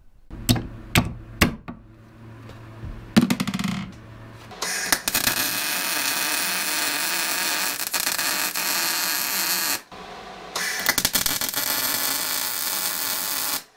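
A few sharp metal knocks, then a MIG welder's arc crackling steadily in two runs of about five and three seconds, with a short pause between. It is welding the loose U-joint caps into the eyes of a Dana 30 axle stub shaft's yoke.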